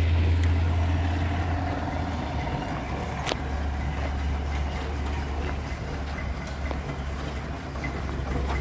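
Steam traction engine running as it moves slowly past: a steady low rumble, with one sharp click about three seconds in.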